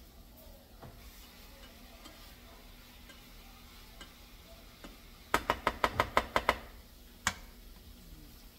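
A utensil knocking against a frying pan of sliced kielbasa while it is stirred: a quick run of about nine sharp taps in a little over a second, about halfway through, then one more tap.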